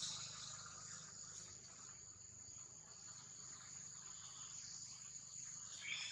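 Faint, steady high-pitched insect chorus in grass, one unbroken tone with no pauses. A brief, higher call starts near the end.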